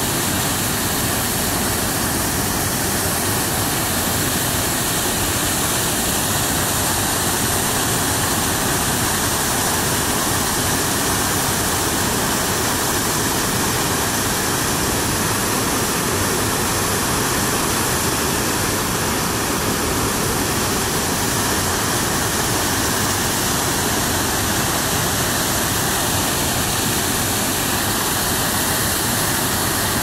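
Waterfall pouring onto rocks: the steady, unchanging rush of falling water.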